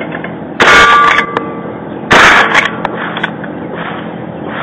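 Two rifle shots about a second and a half apart, the first about half a second in. Each is followed by the ringing of a struck steel target.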